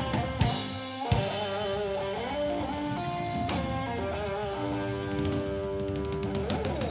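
Blues-rock band playing an instrumental passage without vocals: guitar notes over a drum kit, with a fast run of drum hits near the end.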